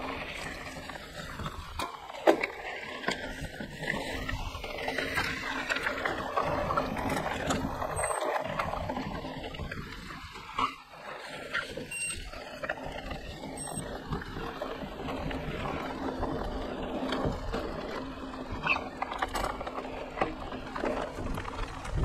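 Mountain bike being ridden along a dirt trail: continuous rolling and riding noise, broken by scattered clicks and knocks from the bike over the ground.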